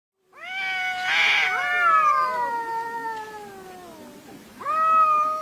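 Two cats yowling at each other in a standoff: long, drawn-out caterwauls that slowly fall in pitch and overlap about a second and a half in, with a short hiss just before. A new, steadier yowl starts near the end. This is aggressive, territorial cat yowling.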